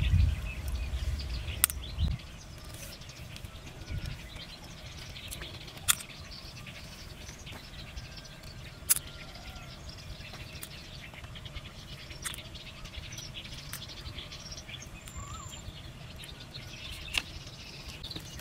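Faint bird chirps over a quiet outdoor background, with a low rumble in the first two seconds and a handful of sharp clicks spaced a few seconds apart.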